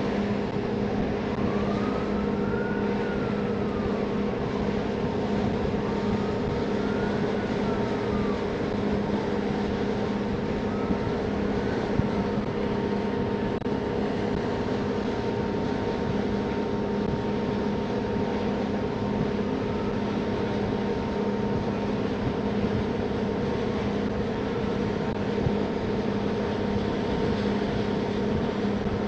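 NYC Ferry boat underway: the engines run with a steady drone and hum, over a constant rush of wind and water. A faint higher tone slowly rises and falls several times.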